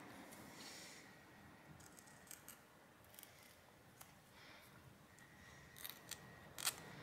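Scissors cutting a thermal pad sheet with its plastic backing film: a few faint snips and clicks spread through, the sharpest one near the end.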